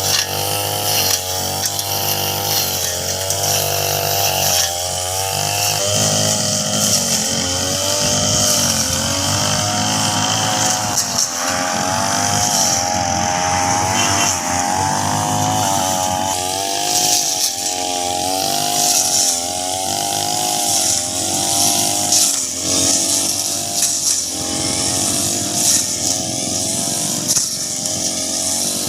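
Petrol brush cutter running as it cuts grass, its small engine's pitch rising and dipping over and over as its speed changes under load.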